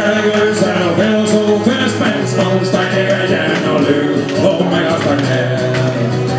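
Live band playing a song, with male lead vocals over acoustic guitar and a steady beat of cymbal hits.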